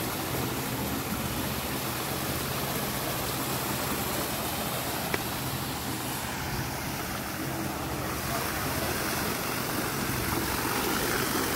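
A vehicle running steadily: a low engine hum under road and wind noise, as heard while riding in it, with a single sharp click about five seconds in.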